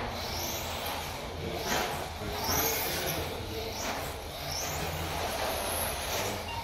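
Xray X12 1/12-scale electric pan car lapping a carpet track: its brushless motor whines, rising and falling several times as it accelerates out of corners and brakes into them, over a steady low hum.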